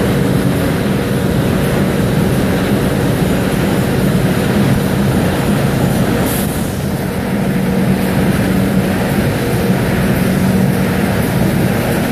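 Ward rotary die cutter line and its conveyors running in a corrugated box plant: a loud, steady mechanical din with a constant low hum.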